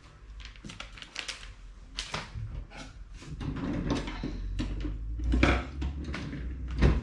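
Kitchen utensils being handled: a run of light clicks and taps, then a louder spell of clattering and rustling about halfway through, ending with a sharp knock.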